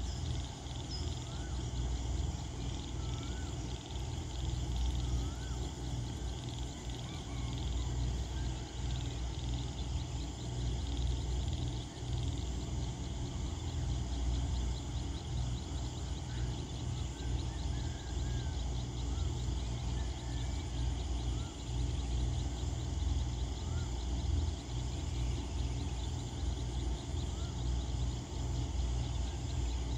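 Evening chorus of frogs and insects, steady and dense, with scattered short chirping calls over it. A low rumble runs underneath.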